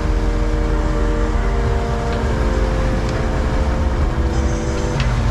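A sport-fishing boat's engine runs steadily, with wind and water rushing over it. Soft background music with held chords sits over the top, its chords changing every second or so.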